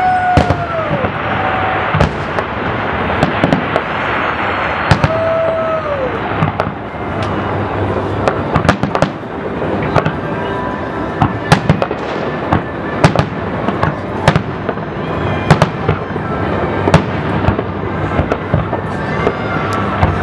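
A fireworks display: aerial shells bursting one after another, many sharp bangs in quick, irregular succession over a continuous din.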